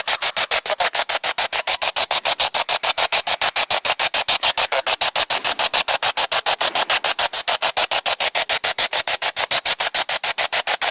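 Radio static chopped into rapid even pulses, about seven a second, like a radio being swept quickly across stations. This is the sound of a spirit box scanning for answers during an EVP session.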